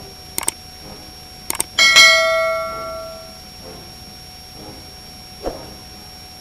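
Two quick pairs of clicks, then a single loud bell-like ding about two seconds in that rings out and fades over a second or so.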